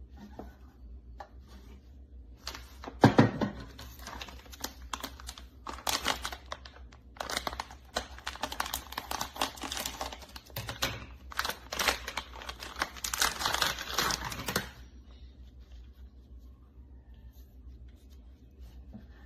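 Crinkling and tearing of plastic packaging being handled: a dense run of crackles and clicks lasting about twelve seconds, loudest as it begins, then stopping abruptly.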